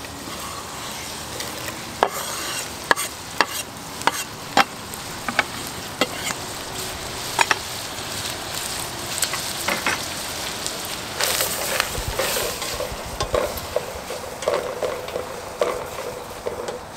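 Ground beef and freshly added diced onion and peppers sizzling in a stainless steel pot over a campfire. Sharp clicks and knocks come through the first half, and a wooden spoon stirring and scraping around the pot gets busier in the second half.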